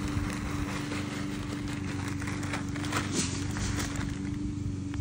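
Gloved hands rustling and pressing loose potting soil around the base of a newly planted sapling, with scattered short crunches, the clearest about three seconds in. A steady low mechanical hum runs underneath.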